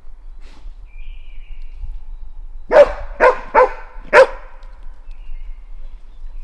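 A Norwegian grey elkhound barking four times in quick succession about three seconds in.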